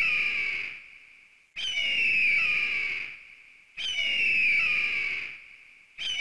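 Eagle call sound effect: a long, harsh scream that falls in pitch and fades. The same call repeats about every two seconds, with three full screams and a fourth starting right at the end.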